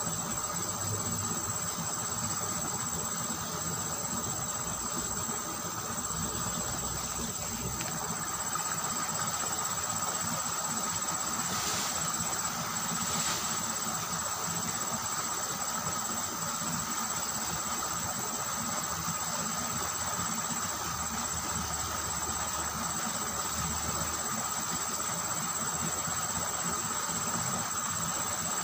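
Insects trilling in a steady, high-pitched chorus that does not let up.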